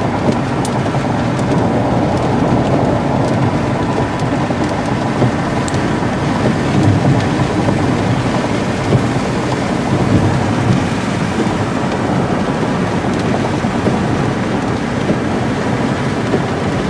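Heavy rain beating steadily on a car, with thunder rumbling under it and swelling a little twice.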